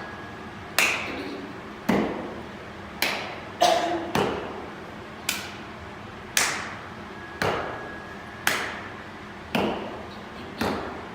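A step team's body percussion: sharp, echoing stomps and claps in unison at a steady beat of about one a second, with an extra quick hit a little over three seconds in.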